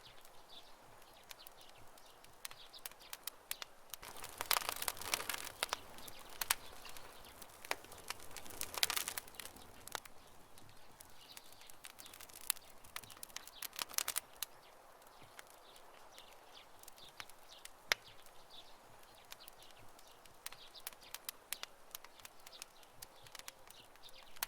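Wood campfire crackling with irregular sharp pops and snaps, busiest in a few short flurries, with faint bird chirps in the background.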